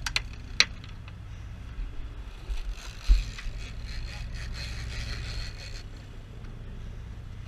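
Boat engine running steadily under wind and water noise, with a couple of sharp clicks in the first second and a low thump about three seconds in.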